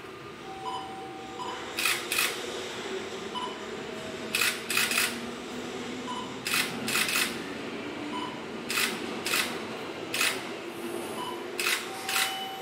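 A 205 series electric train passing slowly, its wheels clicking over a rail joint in pairs and groups of four (one click per axle) over a steady rolling noise.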